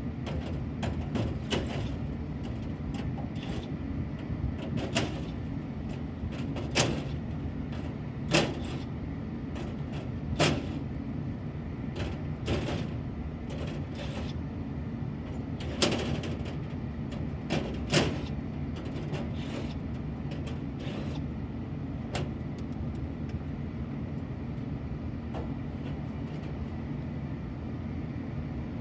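Sheet-metal access panel on an AAON rooftop HVAC unit being unfastened and pulled off: scattered clicks and knocks, with several louder metal bangs, over a steady low mechanical hum.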